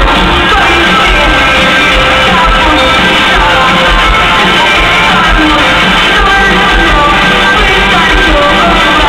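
Live amplified pop-rock band playing with vocals in a large arena, loud and echoing, as heard from the audience.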